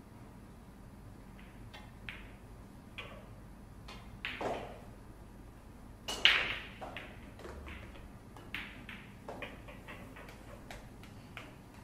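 Pool cue striking the ball with a sharp click about six seconds in, followed by a string of lighter clicks and taps, with a softer knock a couple of seconds before the shot.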